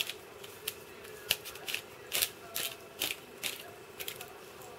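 Hand-twisted pepper grinder grinding pepper: a run of short crunching, ratcheting clicks, about two to three a second, that stops near the end.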